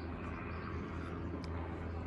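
Quiet outdoor background: a steady low hum under a faint even hiss, with one faint short chirp or tick about one and a half seconds in.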